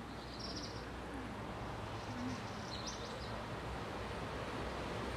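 Outdoor ambience: a steady background hum and rush, with two short high bird trills, one about half a second in and one about three seconds in.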